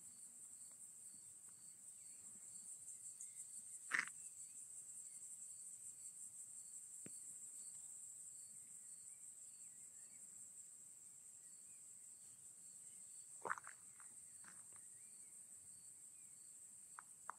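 Crickets chirring in the grass: a steady, high, rapidly pulsing trill, with a fainter chirp repeating about twice a second. Two brief knocks come about four and thirteen seconds in.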